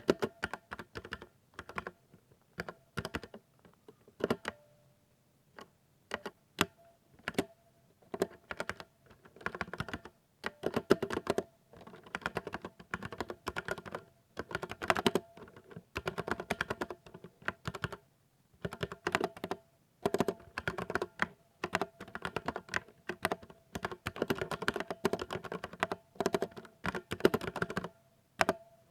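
Keys being typed on a 60% mechanical keyboard. Slow, scattered single key presses at first, then from about eight seconds in, bursts of fast typing broken by short pauses.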